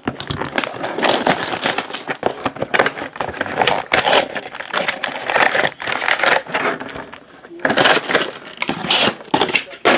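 A box of Panini Status basketball cards being opened: irregular crinkling, ripping and scraping of wrapper and cardboard.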